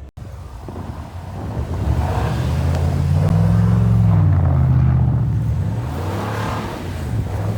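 Pickup truck engine revving under load through snow. Its pitch and loudness climb to a peak about three or four seconds in, then ease off.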